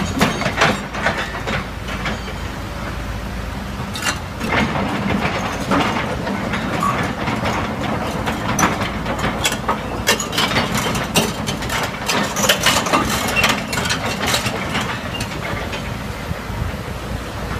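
Hitachi tracked excavator's diesel engine running steadily as its grab pulls at and lifts flood debris, with repeated sharp cracks and knocks of branches and logs breaking and striking.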